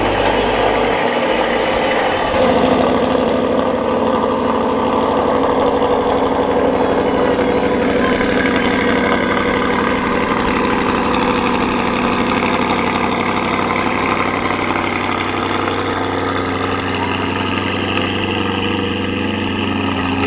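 Mid-engine C8 Corvette Stingray's V8 idling steadily, getting slightly louder about two seconds in.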